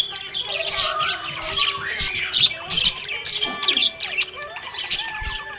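Budgerigars chirping and warbling in a quick, busy chatter of many short calls.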